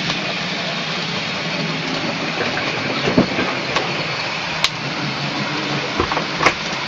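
Model train locomotive running on its track: a steady whir of the motor and wheels, broken by a few sharp clicks in the second half.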